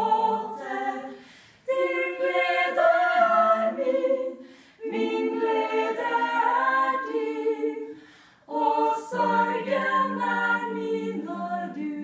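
A small women's choir of six voices singing a cappella, several parts at once. The phrases are held and broken by three short pauses.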